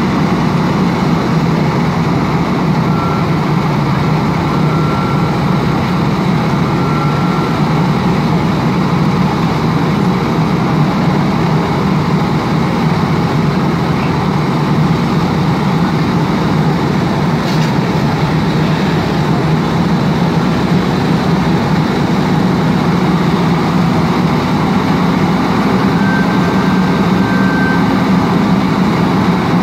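Fire apparatus diesel engines running steadily, a loud even drone with a hiss over it. A faint thin tone sounds twice, briefly.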